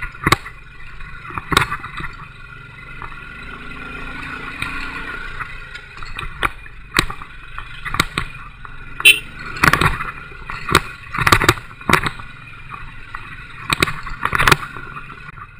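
Royal Enfield motorcycle's single-cylinder engine running steadily under load on an uphill ride, with repeated sharp knocks and rattles as the bike jolts over a rough gravel and rock road.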